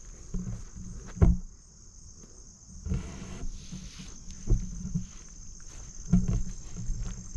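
Insects, crickets or similar, trilling steadily in a high-pitched drone, with the low thumps of footsteps on a marsh trail at irregular intervals, the loudest about a second in.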